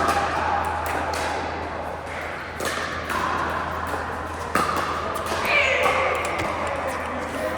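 Pickleball paddles striking a plastic ball and the ball bouncing on a hard court: sharp pops at irregular intervals, several of them close together, over background voices.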